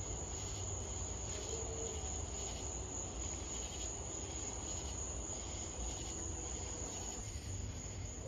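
Crickets chirring in a steady, high-pitched drone, over a steady low rumble.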